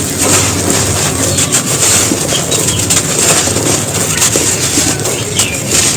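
Dusty soft brick being crushed and crumbled, a dense, continuous crunching and crackling of many small breaks.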